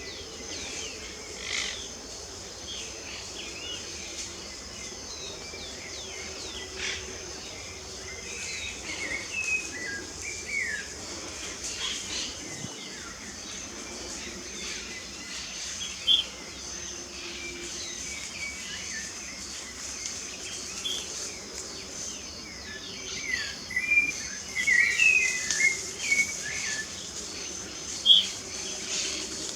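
Several songbirds chirping and singing in short, quick phrases, busiest in the second half. Insects keep up a steady high buzz underneath.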